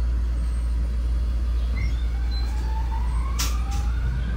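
Inside a Fukui Railway F1000 tram under way: a steady low running rumble, with the traction motors' whine rising steadily in pitch from about halfway through as the tram picks up speed. There is one short sharp click about three seconds in.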